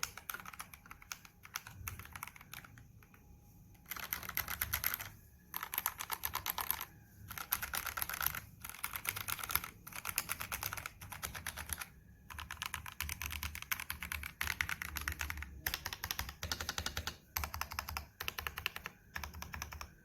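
Typing on a stock, unmodified FL Esports FL980 v2 mechanical keyboard with Kailh Box Red v2 linear switches: fast runs of key clicks in bursts of a second or two with short pauses between them, lighter and sparser for the first few seconds.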